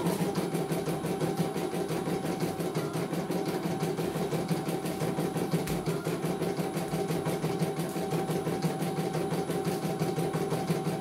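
CNY E900 computerized embroidery machine stitching, its needle running at a fast, even rhythm with a steady motor hum underneath.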